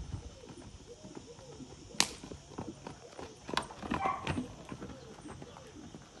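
Hooves of a cantering Pura Raza Española horse striking a dry dirt arena in an irregular beat, with one sharp crack about two seconds in.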